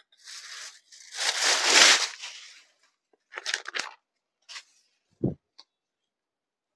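Stiff saree fabric rustling and swishing as it is unfolded, lifted and shaken out, loudest in one long swish about a second in, then a few shorter crinkles. A single low thump follows a little after five seconds.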